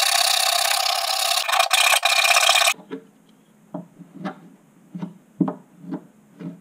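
Hand file rasping back and forth in a slot in a wooden model boat hull, enlarging the slot for the prop-shaft strut. The filing stops abruptly about two and a half seconds in, followed by a string of short, soft knocks, roughly two a second.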